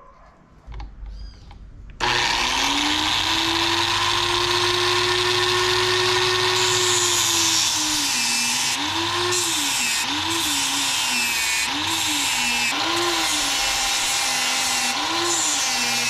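Angle grinder fitted with a sanding disc starting up about two seconds in and coming up to speed. From about halfway on, its pitch dips and recovers five or so times as a small workpiece is pressed against the disc and eased off.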